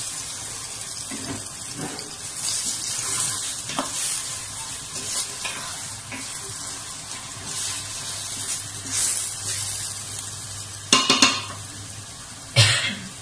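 Minced chicken sizzling in a stainless steel pot while a wooden spoon stirs and scrapes it through softened onions, in repeated strokes. A few sharp knocks near the end.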